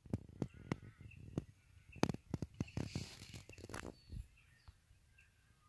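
Irregular clicks, knocks and rustles from the microphone being handled close in among grass blades, with a short burst of rustling about three seconds in, easing off after about four seconds. Faint bird calls in the background.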